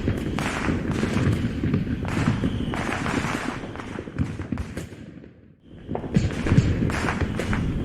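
Aerial fireworks sound effect: a dense run of bangs and crackling bursts. It fades out about five seconds in and starts up again a second later.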